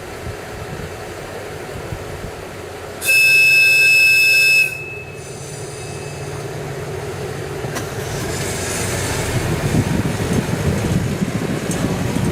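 TMC200 snow-removal motor car sounding its whistle: one steady, high blast of about a second and a half, a few seconds in, over the motor car's running noise. The running noise grows louder in the last few seconds.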